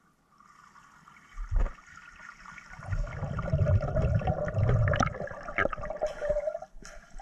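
Water churning and bubbling as heard underwater while a snorkeler swims close past. There is a thump about a second and a half in, then a low rumble with scattered clicks that fades near the end.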